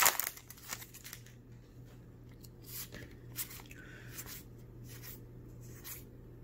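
Magic: The Gathering trading cards being handled: a louder crinkle right at the start, then scattered soft rustles and slides of cards against each other, over a faint steady hum.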